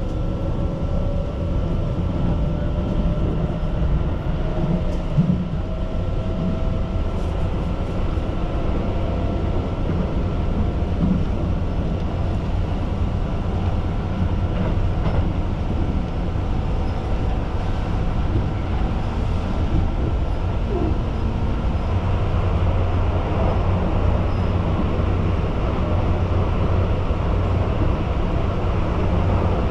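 Keihan Line commuter train heard from inside the car while running between stations: a steady rumble of wheels on rail, with a faint rising motor whine in the first few seconds as it pulls away.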